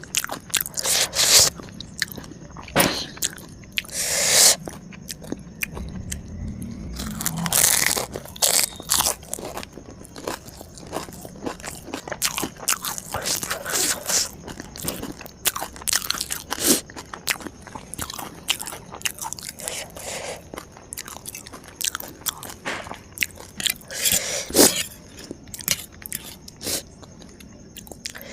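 Close-miked eating: a person biting into and chewing crunchy food, with a steady run of sharp crunches and a few louder bites about 4, 8 and 25 seconds in.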